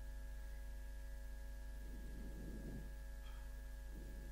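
Steady low electrical mains hum with several faint fixed tones above it, with a couple of faint soft rustles about two seconds in and near the end.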